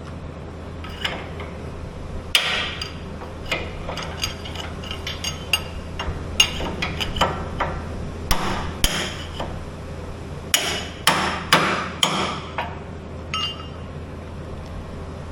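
Hammer striking steel in an irregular run of blows, some leaving a short metallic ring. This is the driving work of replacing the axle bushings on a Skyjack SJIII 3219 scissor lift.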